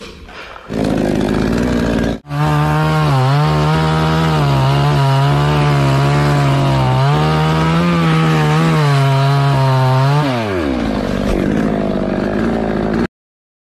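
Two-stroke chainsaw running at high revs while cutting through a teak trunk, its pitch dipping and recovering under load. About ten seconds in, the revs fall away sharply as the throttle is released, and the sound cuts off suddenly near the end.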